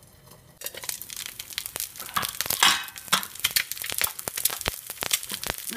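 Fried eggs popping and crackling in hot olive oil in a frying pan, many sharp, irregular pops starting about half a second in. The popping is the sign that the eggs are almost done.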